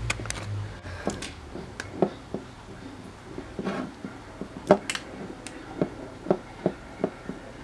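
Light, irregular knocks and clicks of a weighted plastic roly-poly toy rocking and rolling on a wooden tabletop, about ten of them at uneven spacing.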